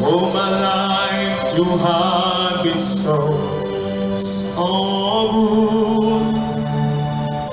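Electronic keyboard holding slow, sustained pad chords while a man sings a wordless melody over them in two long phrases, with two short hiss-like sounds between the phrases.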